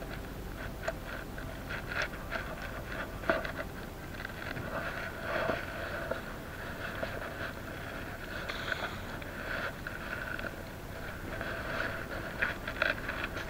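Scraping, rustling and scattered clicks of braided line being gathered by hand and coiled into a plastic bucket on a concrete pier, over a steady background drone.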